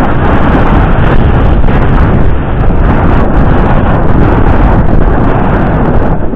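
Loud, steady wind rumble buffeting the microphone of a camera riding on a moving road bicycle.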